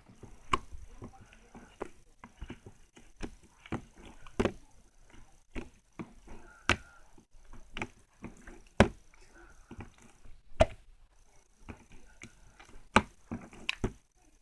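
Slime being played with by hand: irregular sharp pops and clicks as air pockets burst while it is pressed and stretched.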